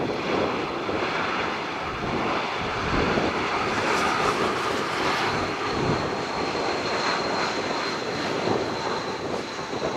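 Airbus A320 jet airliner on final approach to land, its engines giving a steady rushing noise, with a high whine joining about four seconds in.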